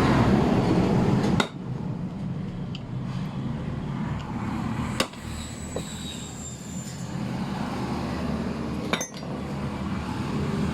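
Three sharp metal-on-metal hammer strikes a few seconds apart, the second leaving a brief high ring: a bearing being knocked out of a Denso car AC compressor pulley. A steady low background hum runs underneath.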